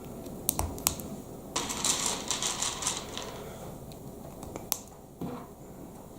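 Small plastic Lego Technic pieces being handled: a few sharp clicks, then about a second and a half of dense clattering, and one more click near the end.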